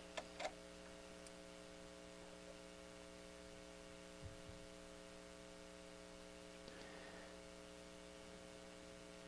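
Faint, steady electrical mains hum, with two small clicks right at the start and a soft low thump about four seconds in.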